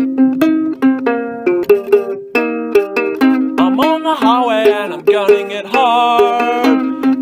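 Ukulele playing quick plucked chords in a steady rhythm. About halfway through, a wavering higher melody line comes in over it.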